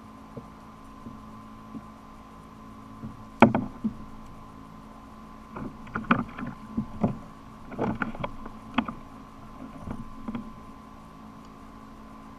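Knocks and thumps on a plastic kayak hull as a landed cobia is hauled aboard and laid across the deck: one sharp knock about three and a half seconds in, then a flurry of irregular knocks in the second half. A faint steady hum sits underneath.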